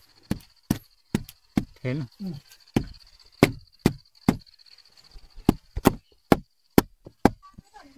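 Repeated sharp chopping strikes on wood, about two a second, with a pause of about a second midway.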